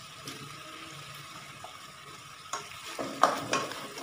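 Chicken stew base of chicken, onion and tomato sizzling faintly in a pot, with a few sharp knocks as potato chunks are pushed in from a plate with a wooden spatula and stirred, the knocks bunched near the end.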